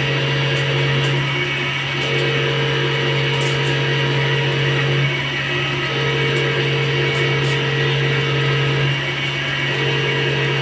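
CNC turret lathe running a cut: its spindle turning an extruded rod while the first tool cuts the end and coolant sprays over the work. A steady low hum runs throughout, with a higher machine tone that drops out briefly about every three seconds.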